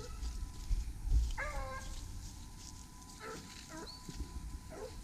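Hunting dogs baying while running a rabbit: one drawn-out bay falling in pitch about a second and a half in, then several shorter bays. A low rumble hits the microphone about a second in.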